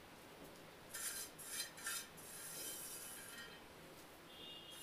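Crisp fried onions crumbled by hand and scattered over cooked biryani rice: a few light crackling rustles about a second in, then a softer rustle.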